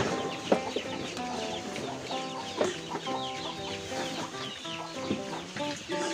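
Chickens clucking and chirping over instrumental background music.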